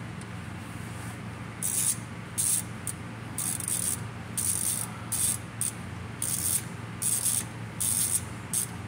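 Ratchet wrench clicking in short spurts, about ten back-swings at an uneven pace, as a bolt on a car's exposed automatic-transmission valve body is turned.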